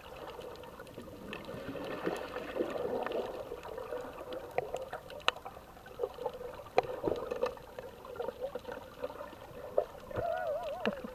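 Underwater sound picked up by a camera below the surface: water gurgling and bubbling around the microphone, with scattered sharp clicks and a brief wavering whistle of air bubbles near the end.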